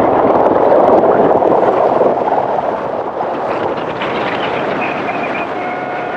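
Loud, steady rushing noise of a vehicle in motion, easing a little after about two seconds, with a few faint steady tones near the end.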